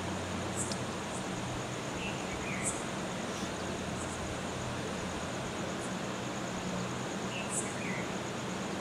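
Steady outdoor background hiss with a low hum underneath. Short, faint high chirps recur about every second or so over a thin, constant high whine.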